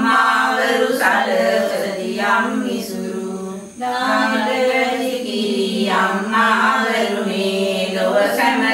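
Unaccompanied group singing of Sinhala devotional verses to the goddess Pattini, led by women's voices, in a steady, continuous chant with a short break a little before halfway.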